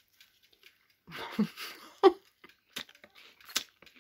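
Someone eating pizza: a short stretch of crunching and chewing with a brief murmur of voice, followed by a few sharp clicks.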